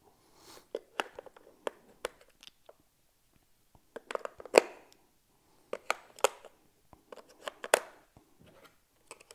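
AA batteries being pressed into the plastic battery compartment of a radio-control transmitter: a series of sharp plastic clicks and rattles, the loudest about four and a half seconds in.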